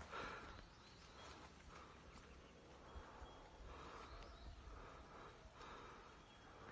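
Near silence: faint outdoor forest ambience, with a few soft, indistinct sounds and no clear calls.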